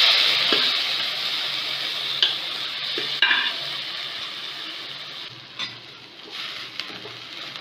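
Pressure-cooked horse gram sizzling in a pan of hot oil with onions and tempering. It starts loud as the gram goes in and slowly dies down, with a spoon scraping the pan now and then as it is stirred.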